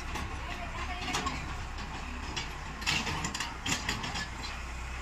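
Diesel engines of a tractor hauling a trolley and a JCB backhoe loader running steadily, with a few short clattering knocks about three seconds in.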